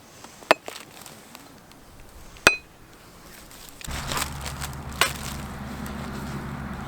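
Two sharp clinks of hard objects knocking together, each ringing briefly; about four seconds in a steady low hum starts and carries on, with another click over it.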